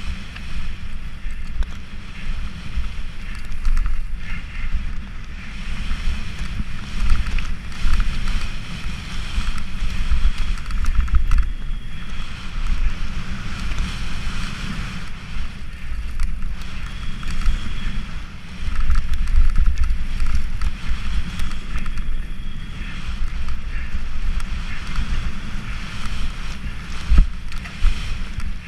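Wind buffeting the microphone of a camera riding a fast mountain-bike descent, with knobby tyres rumbling over dirt and loose gravel. Sharp knocks and rattles come now and then as the bike hits bumps.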